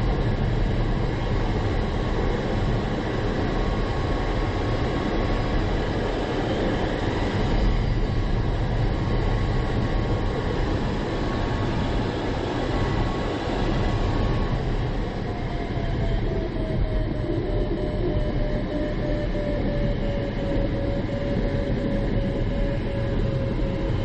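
Steady rush of air over the ASW 20B sailplane's canopy and fuselage, heard inside the cockpit in flight, with no engine. A thin steady tone runs through the first half, and a faint tone that sinks slightly in pitch comes in for the second half.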